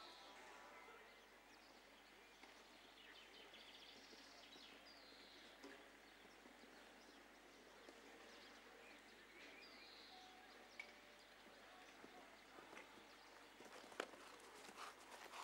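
Faint hoofbeats of a horse cantering on a sand arena, growing more distinct near the end with one sharp knock. Faint bird chirps, each falling in pitch, sound now and then over a quiet outdoor background.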